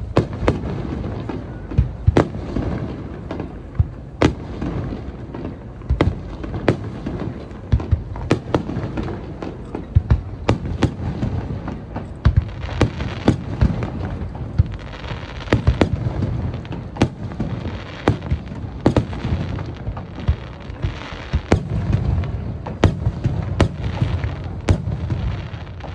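Aerial fireworks bursting in a fast, irregular string of sharp bangs, often several a second, over a continuous low rumble.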